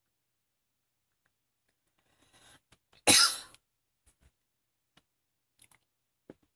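A single short, loud burst of noise about three seconds in, lasting about half a second. A few faint soft clicks and rustles come before and after it.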